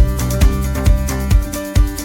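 Upbeat background music with guitar and a steady beat of about two strikes a second.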